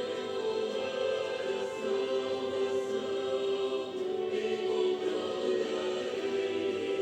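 Slow hymn music in long held chords, several voices sounding together, played by clarinets. Near the end a lower line steps downward.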